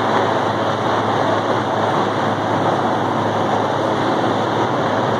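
Helicopter hovering low overhead, its rotor and engine noise loud and steady with a constant low hum.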